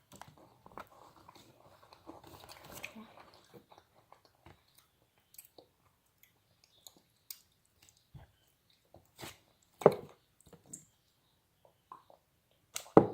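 A person chewing and crunching a white chocolate KitKat wafer bar close to the microphone. Scattered faint crunches run throughout, with a few louder bites about ten seconds in and near the end.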